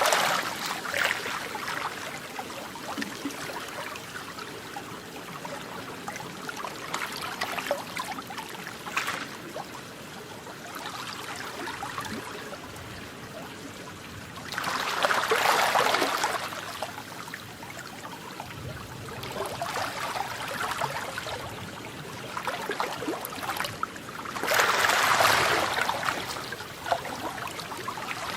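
Water lapping and splashing, a continuous wash with louder swells every several seconds, the strongest two about halfway through and near the end.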